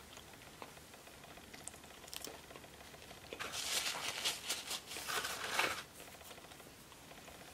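Paper napkin rustling and crinkling for about two and a half seconds, starting a little before the middle, as greasy fingers are wiped on it.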